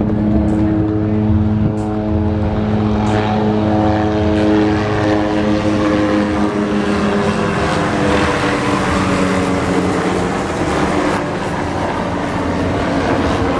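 Two MD 500-type light helicopters flying past, their rotors and engines making a steady hum of several even tones. A rushing noise swells about halfway through as one comes close overhead, then eases.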